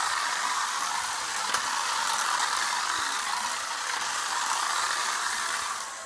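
Toy remote-control car's small electric motor and gears whirring steadily as it drives across a vinyl floor mat, cutting off at the end as the car stops.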